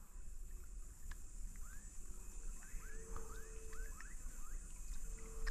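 Outdoor riverside ambience. A bird gives a run of quick rising chirps about two seconds in, over a steady high insect drone, with faint clicks and low rumble.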